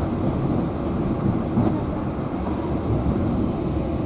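Steady rumble of a moving passenger train heard from inside the carriage, its wheels running on the rails.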